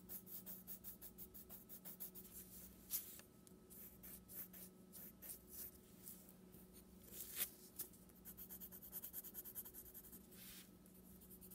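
Pink colored pencil scratching back and forth on paper, shading in quick, even strokes that come faster near the end. A faint steady hum runs underneath.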